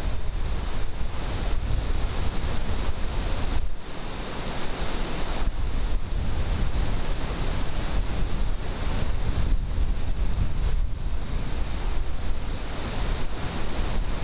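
Flooded Winooski River running high over its falls and rapids: a loud, steady rush of churning whitewater, with wind rumbling on the microphone.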